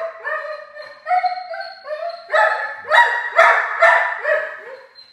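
Young black Labrador retriever barking over and over, a rapid run of about ten short, fairly high barks at roughly two a second, stopping near the end.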